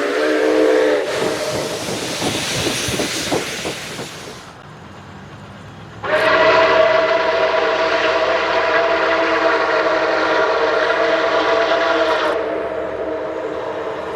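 Steam locomotive chime whistle. A chord of several notes cuts off about half a second in, followed by a few seconds of steam hiss. About six seconds in, a long loud chord blows for about six seconds, then eases off quieter near the end.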